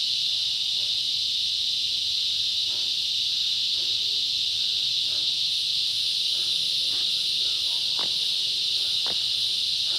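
Steady insect chorus, a continuous high shrill buzz, with a few short faint sounds near the end.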